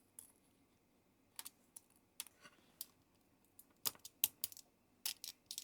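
Fingernails picking and peeling the coating off a COB LED filament strip: faint, irregular small clicks and ticks, coming more often in the second half.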